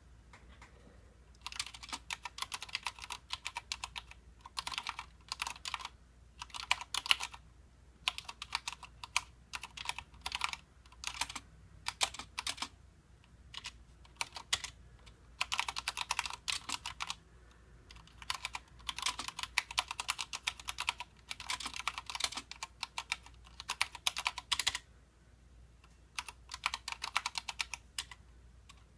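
Typing on a Mistel MD870 Sleeker mechanical keyboard with linear Cherry MX Red switches: fast runs of key clacks in bursts of a second or two, with short pauses between them.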